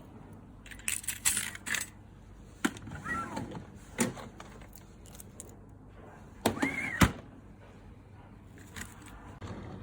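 A keychain being handled: metal keys and clips jangling and clicking in short bursts, with two brief tones that rise and fall in pitch, one about 3 seconds in and one near 7 seconds.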